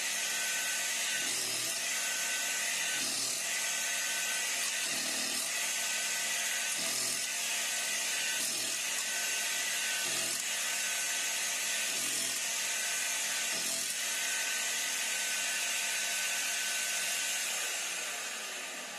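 Electric coconut grating machine running while grating coconut: a steady high-pitched whine and rasp of the spinning grater, with a low bump about every second and a half. It fades out near the end.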